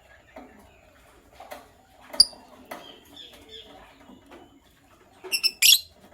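Lovebirds chirping in short, scattered calls mixed with sharp clicks, then a loud burst of shrill chirps near the end.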